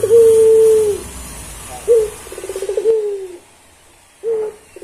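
Puter pelung, a long-voiced Barbary dove, cooing. A low, long held note ends about a second in. Near the two-second mark a new coo starts with a short rising note, a quick stuttering roll and a falling drawn-out note. Another short note comes near the end.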